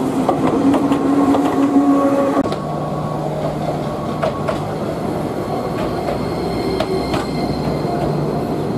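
Enoden Line electric train running close by: a steady motor hum that drops lower about two and a half seconds in, with scattered clicks from the wheels on the rails.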